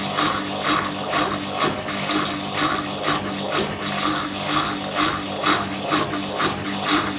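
2001 Simpson Esprit 550 washer in its spin, its suspension rods squeaking in a steady rhythm of about two squeaks a second over a steady motor hum; the squeak comes from worn, dry suspension rods.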